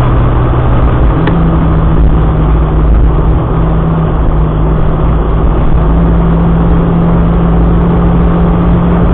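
A car's engine running under way over a loud, steady low road rumble; the engine note steps up about a second in.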